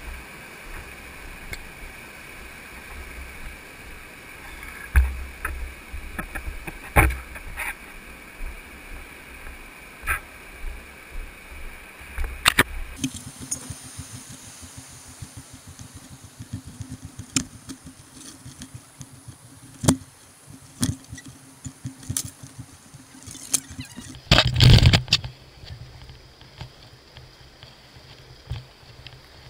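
Muffled steady rushing of river water with scattered knocks and bumps of gear being handled. A loud burst of knocking lasts about a second near the end.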